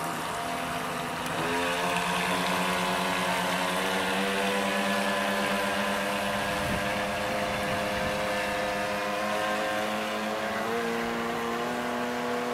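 Heng Long 3837 RC speedboat's twin 380 brushed electric motors whining steadily at speed over the rush of water. The pitch rises about a second and a half in and steps up again near the end.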